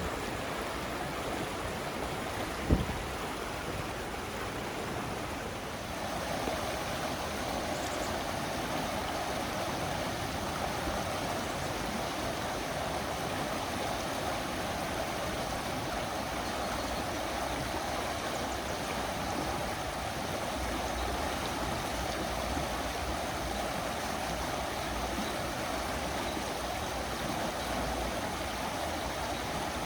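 River water flowing over a shallow bed, a steady rushing and gurgling. There is one short low thump about three seconds in, and from about six seconds in the rush sounds a little fuller.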